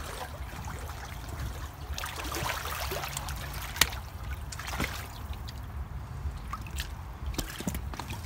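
A creek trickling, with footsteps crunching on loose shale and gravel and a few sharp clicks of rock chips; the loudest click comes a little before the middle.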